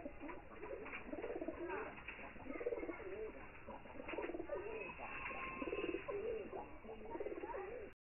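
Common myna calling, a run of low, wavering, bubbling notes in several phrases.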